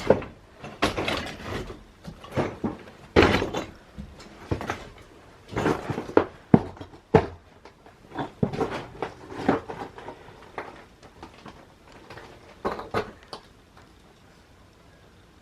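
Irregular knocks, thuds and clatter of wood being handled during demolition in a small room, fading away about thirteen seconds in.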